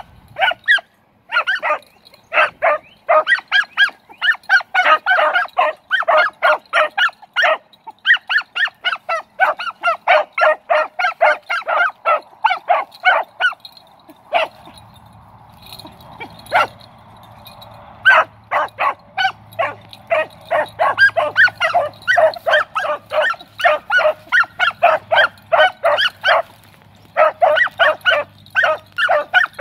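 Beagles giving chop mouth on a rabbit track: rapid strings of short, sharp barks, several a second. The barking breaks off for a few seconds about halfway, with one lone bark in the lull, then picks up again. A faint low, steady hum comes in about halfway and stays.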